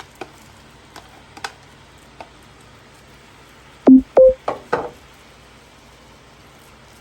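Light clicks of a cooking utensil, then five loud knocks a little after the middle, the first two ringing briefly with a low tone, as a utensil is knocked against the cooking pot.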